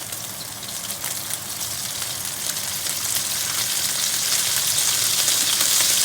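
Boiled pork pieces starting to fry in olive oil in a pan: a crackling sizzle with scattered small pops, growing steadily louder as the oil heats.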